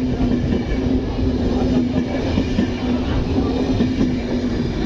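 Passenger train running through a station: a steady rumble of carriages on the rails with a continuous low drone.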